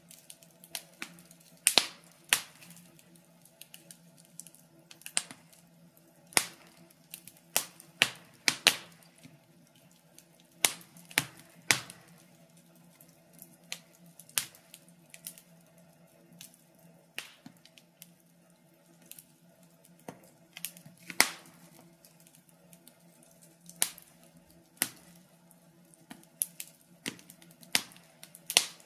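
Wood fire crackling: irregular sharp pops and snaps, about one or two a second, some much louder than others, over a faint steady low hum.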